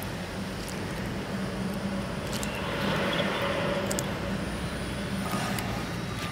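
Steady low mechanical hum over a background rumble, with a few faint clicks.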